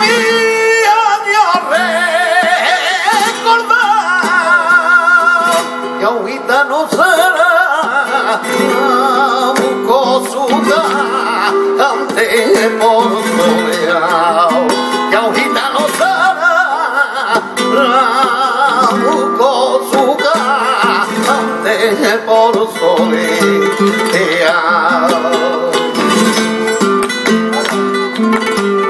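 Flamenco soleá apolá: a male cantaor sings long, wavering lines over flamenco guitar, with hand-clapped palmas keeping the rhythm.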